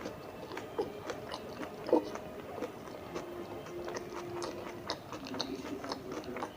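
Close-miked chewing and biting of tandoori momos: irregular, quick wet mouth clicks and smacks.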